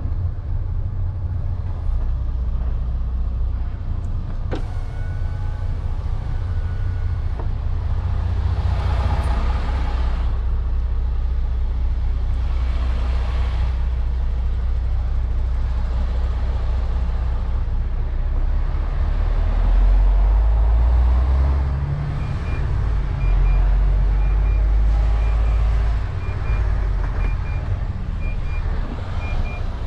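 Truck's diesel engine running low and steady as heard inside the cab during slow manoeuvring, its rumble swelling twice in the second half. Two short stretches of hiss come about a third of the way in, and a regular series of short high beeps starts about two-thirds of the way through.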